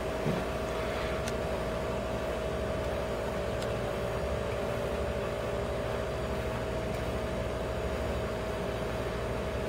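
Steady mechanical hum with one constant mid-pitched tone over a low rumble, unchanging throughout.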